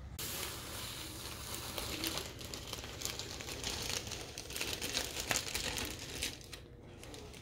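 Crinkling, rustling handling noise with many small scattered clicks, as of plastic or the recording device being handled.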